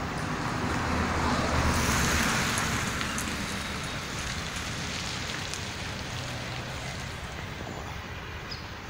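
Steady outdoor traffic noise, swelling about one to three seconds in as a vehicle passes, then easing off.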